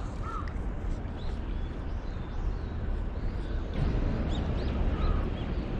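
Outdoor riverside ambience: a steady low background rumble with small birds chirping briefly now and then, several chirps close together about four seconds in.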